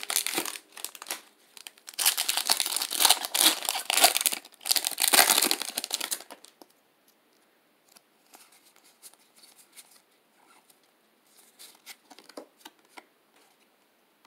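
Foil wrapper of a Pokémon Unbroken Bonds booster pack crinkling and tearing as it is ripped open, loud for about six seconds. The wrapper noise then stops, leaving faint soft clicks and rustles of the cards being handled.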